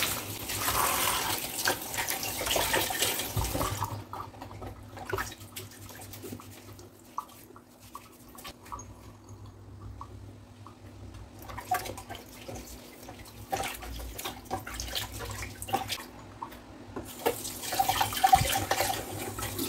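Water from a kitchen tap running over potatoes being washed by hand. The flow stops for several seconds in the middle, leaving scattered small knocks, then runs again.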